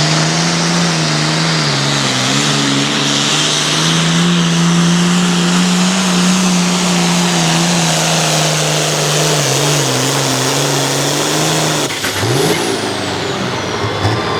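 Turbocharged diesel Hot Farm pulling tractor under full throttle dragging the sled, its engine note held high and wavering over a heavy rush of exhaust and boost. About twelve seconds in the engine drops off, and a high whistle falls steadily in pitch as it winds down.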